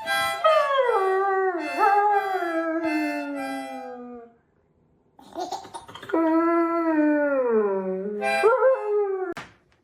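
A dog howling: a long drawn-out howl that slides down in pitch, about a second of quiet, then another long falling howl and a short rising note near the end.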